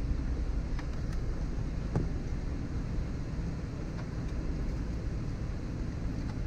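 Steady low rumble of a Boeing 777-300's cabin as the airliner rolls along the ground after landing, with engine and wheel noise, and a few faint knocks, the clearest about two seconds in.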